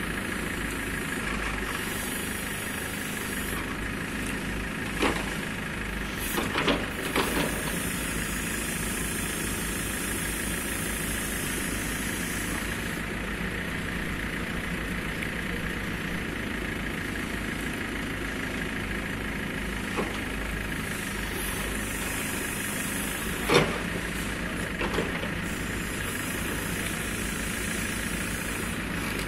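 JCB 3DX backhoe loader's diesel engine running steadily while digging, with a few short sharp knocks; the loudest knock comes about 23 seconds in.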